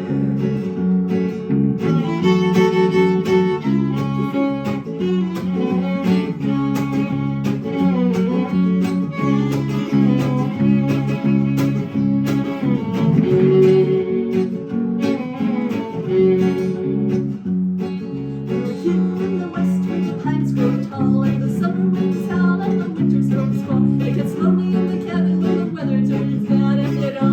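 Instrumental break in a song: acoustic guitar strumming under a melody line of held notes.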